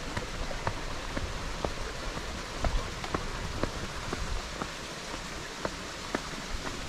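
Steady rain falling, with footsteps on a wet paved path about twice a second.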